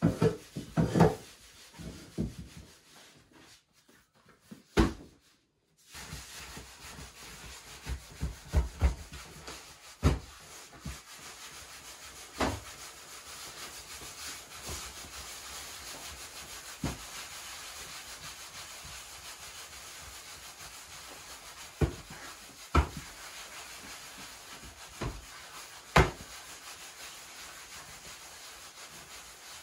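Hands pressing and rubbing balls of bread dough on a floured wooden board, a steady rubbing hiss with a few sharp knocks of hands and dough on the wood. A brief near-silent gap comes a few seconds in.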